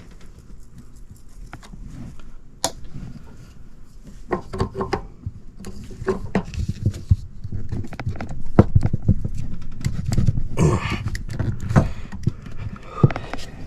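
Irregular clicks, knocks and rustling from hands handling PVC condensate drain pipe and fittings while building a new drain trap, busiest in the second half.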